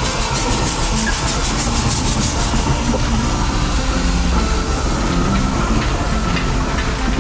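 Steam traction engine running past on the road, its exhaust beating in fast even chuffs for the first couple of seconds, with a hiss of steam and the low rumble of its wheels and the trailers it tows.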